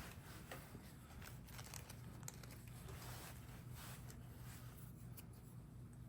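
Faint scattered light clicks and rustling as small parts of a Ford door lock are handled, over a steady low hum.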